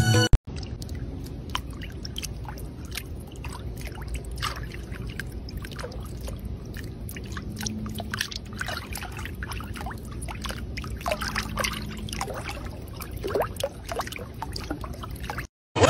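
Water trickling and splashing: a steady low rushing with many small scattered drips and splashes.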